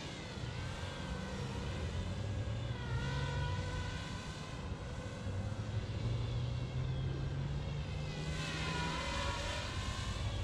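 Feima J.ME quadcopter drone's propellers buzzing in flight, a steady whine over a low hum that wavers in pitch as the drone manoeuvres and grows louder about eight seconds in.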